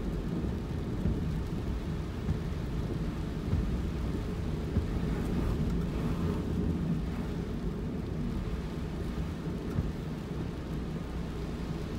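Steady low rumble of road and engine noise from a moving car, heard from inside, with no distinct events.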